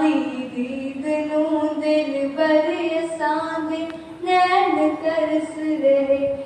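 A teenage girl singing a Punjabi devotional song unaccompanied through a microphone, drawing out long gliding notes with short breaks between phrases.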